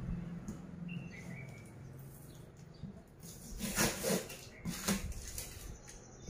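Packaging rustling and crinkling as a clear plastic wrap is pulled off a cardboard carton, in a few short bursts in the second half.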